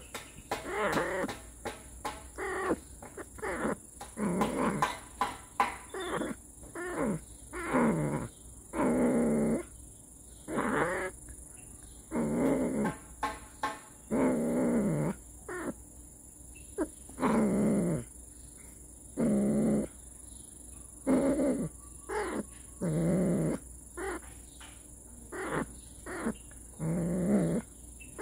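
Domestic cat giving a long series of low, drawn-out growling yowls, many sliding down in pitch, about one every one to two seconds: a cat's hostile warning call.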